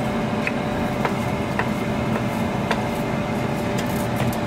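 Steady mechanical hum, with about five light clicks of a wooden spatula against a nonstick frying pan as it pushes scrambled eggs around.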